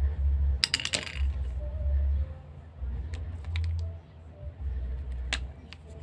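Small sharp clicks and taps as electrical wires and hand tools are handled: a quick cluster about a second in, a few more around three seconds in, and a louder single click near the end, over an uneven low rumble.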